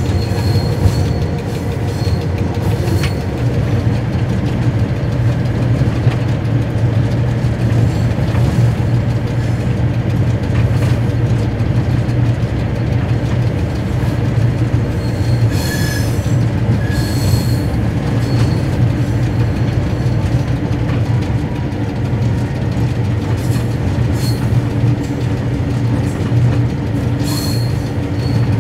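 Inside the cab of a CIE A class diesel locomotive with a General Motors engine, running steadily along the line: a constant low engine drone under the rail noise. Short high-pitched wheel squeals come in about halfway through and again near the end as the locomotive takes the curves.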